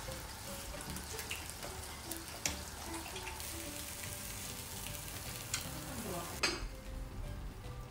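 Lamb chops, scallops and asparagus sizzling on an electric grill plate, with a few sharp clicks; the sizzle stops suddenly about six and a half seconds in.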